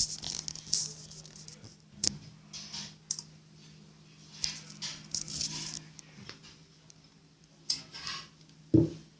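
Slime being stirred in a bowl: scattered clicks, scrapes and sticky squishing, over a steady low hum. A short, louder low thump comes near the end.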